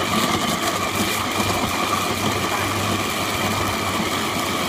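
Electric kitchen blender running steadily at full speed, puréeing boiled chicken and vegetables in their stock.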